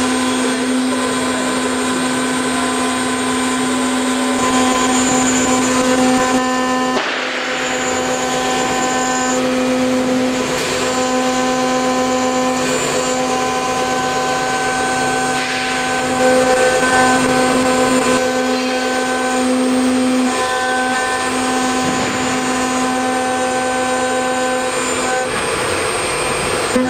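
CNC router spindle running a small end mill through a steel mould block: a steady hum at one constant pitch, with overtones that come and go, over the hiss and chatter of the cut. The level dips briefly about seven seconds in.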